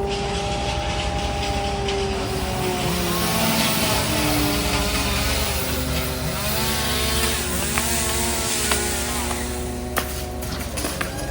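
Several engines of tree-work machinery running at once, their pitches rising and falling, over a steady low drone. A hiss builds after about two seconds, and a few sharp clicks come near the end.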